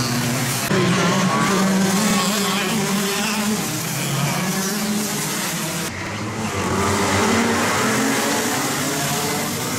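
Several racing kart engines running at high revs as the karts pass through a corner, pitch rising and falling as they lift off and accelerate.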